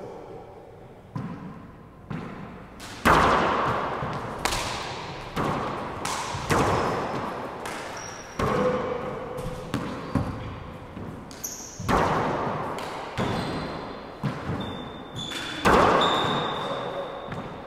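Handball rally in an enclosed four-wall court: a hard rubber ball is struck by gloved hands and cracks off the walls and floor about once every second or so, each hit ringing with a long echo. A few short high squeaks come near the end, from shoes on the hardwood.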